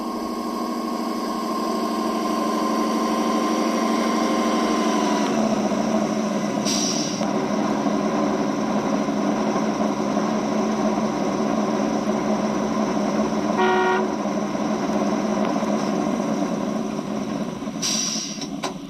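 Simulated truck diesel engine from an RC model's Das Mikro TBS Mini sound module, played through the model's onboard speakers. The engine runs at a steady note that changes about five seconds in. A short horn toot comes about fourteen seconds in, and two brief hisses come about seven and eighteen seconds in.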